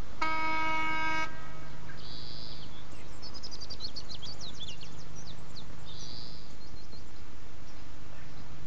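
A narrow-gauge locomotive gives one short toot, a steady single note lasting about a second. Birds chirp a couple of seconds later.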